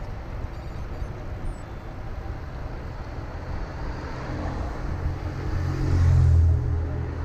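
Wind rumble on a bicycle-mounted camera's microphone and tyre noise as the bike rolls down a town street, with a motor vehicle passing close; its engine swells to the loudest point about six seconds in, then fades.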